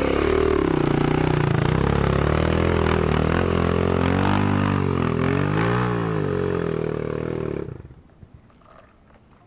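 Enduro dirt bike engine running under load on a muddy uphill trail, its pitch rising and falling as the throttle is worked. The sound cuts off suddenly near the end.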